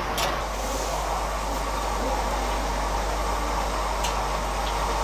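Stir-frying in woks over gas burners: a steady roar of the burners and the frying food, with a few sharp clinks of a metal ladle and spatula against the woks.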